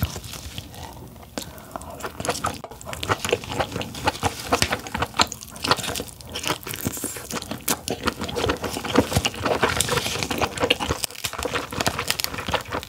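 Close-miked biting and chewing of king crab: a dense run of small crunches, clicks and wet crackles.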